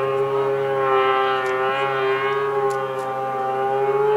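Snowmobile engines heard from afar, held at high revs in a steady, siren-like whine whose pitch slowly rises and falls, with a few faint clicks.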